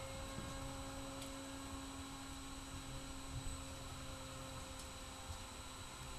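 Steady electrical hum with a few faint constant tones, one of them a high whine, over a low hiss.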